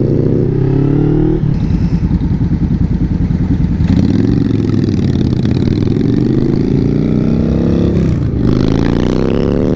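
Honda CB500F's parallel-twin engine pulling up through the gears under a helmet camera. Its pitch climbs, drops back at each shift and climbs again, with a marked dip and recovery about eight seconds in, over wind rush on the microphone.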